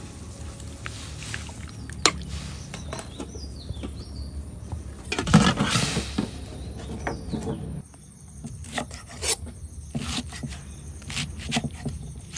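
A metal pot lid is set on a pot of boiling pork intestine with a brief clatter about five seconds in. Then a large kitchen knife chops pickled mustard greens on a thick wooden chopping block in a series of uneven knocks.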